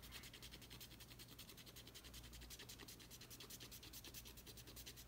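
A long fingernail scratching the coating off a paper scratch card, faint, in rapid even strokes of about eight a second.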